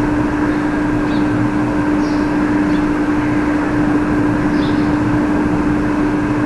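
Steady hiss with a constant low hum, unchanging and without separate events: background noise picked up by the recording microphone.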